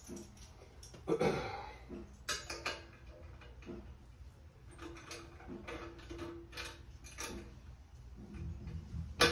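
Light clicks and clinks of stainless steel tri-clamp fittings and a glass mason jar being handled and fitted together, with a louder knock about a second in and a sharp click near the end.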